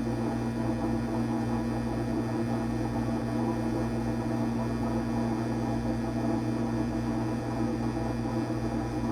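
GE Select GSD3732D01WW dishwasher running: a steady motor hum with a fluttering rushing noise over it.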